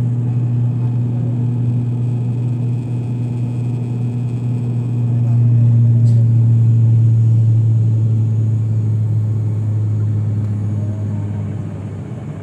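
Turboprop airliner's engines and propellers droning steadily, heard inside the cabin: a loud low hum with a fainter second tone above it. It swells a little about five seconds in and eases off near the end.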